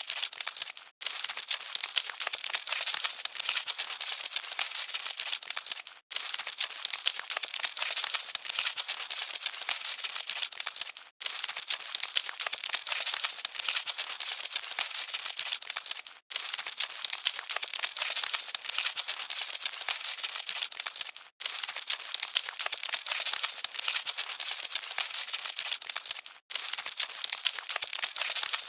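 Cockroaches scuttling, a dense fine crackling rustle. It plays as a short repeating loop that drops out briefly about every five seconds.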